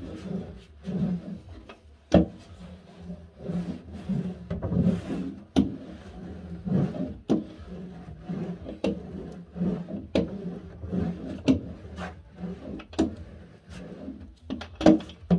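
A hand roller is worked back and forth over cork sheet freshly stuck to a wooden baseboard with contact adhesive, pressing it down to bond. It makes repeated rubbing, rolling strokes about one a second, with sharp knocks here and there as the roller and hands bump the board.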